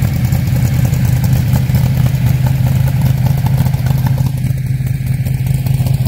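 De Tomaso Pantera's V8 exhaust running at a steady engine speed, a deep even drone with no revving.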